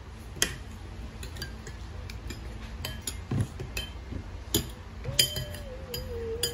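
A spoon clinking against a bowl of hot binignit soup as someone eats: irregular light taps, each with a brief ring. About five seconds in, a long steady tone begins and slowly falls in pitch.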